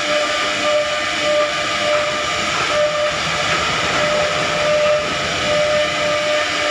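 CNC router running, a steady whine over a broad, even hiss.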